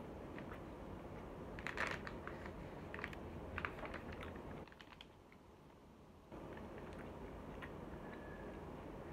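Scattered light clicks and crinkles of a paper takeout bag and wooden yakitori skewers being handled, thickest about two and three and a half seconds in, with a quieter lull just past the middle.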